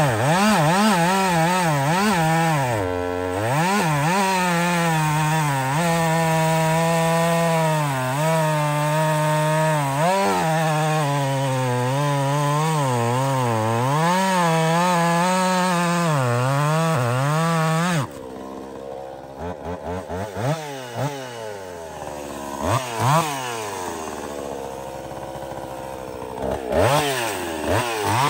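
Jonsered 2156 woods-ported two-stroke chainsaw cutting cherry wood at high revs, its pitch sagging and recovering again and again as the chain loads in the cut. About two-thirds through, it drops to a lower, quieter running with a few short throttle blips.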